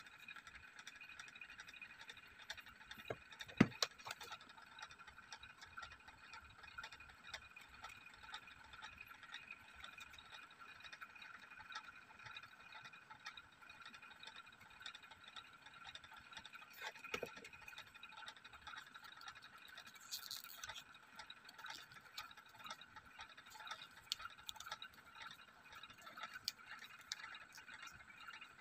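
Faint handling of cardboard and velvet-covered pieces, with a few sharp clicks and taps, the loudest about three and a half seconds in, over a steady high hum.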